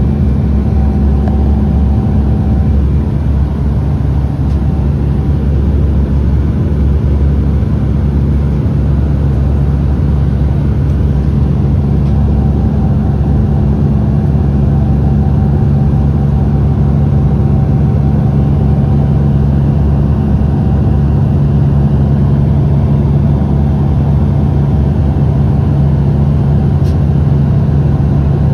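Steady cabin drone of a Dash 8 turboprop airliner in cruise: engine and propeller hum made of several steady low tones over an even rushing noise.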